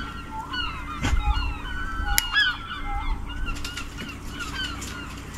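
A flock of birds calling, many short chirps and squawks overlapping throughout, with a couple of sharp clicks about one and two seconds in.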